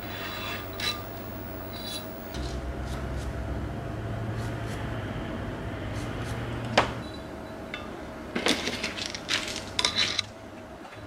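Hand-turned valve seat cutter scraping a few strokes on a cylinder head's valve seat. Then a sharp metal knock and a quick run of clinks and clicks as the cutter is lifted off its pilot and set back on.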